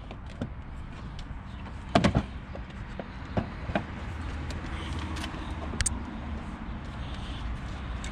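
Scattered sharp clicks and knocks of a car's plastic front bumper and its clips being worked loose by hand, the loudest a quick cluster about two seconds in, over a steady low background rumble.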